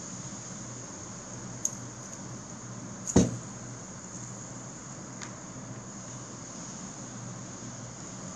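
Packaging and a fidget spinner being handled during unboxing: a sharp click about one and a half seconds in, a louder knock about three seconds in and a faint click later. A steady high-pitched hiss runs underneath.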